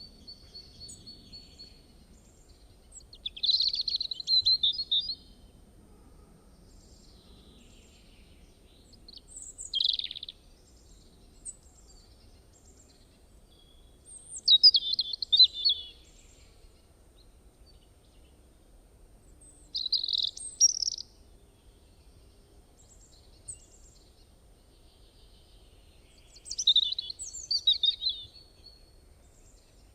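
A songbird singing in short, high phrases of quick chirps and trills, five phrases spaced about five to six seconds apart, over a faint low background hiss.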